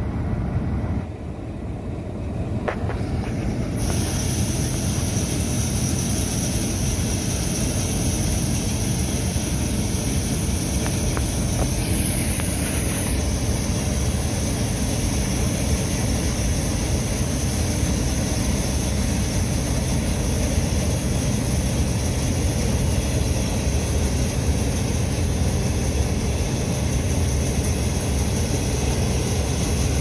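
New Idea Uni-System 801 power unit with an 818 combine running steadily while harvesting barley: a continuous drone of engine and threshing machinery.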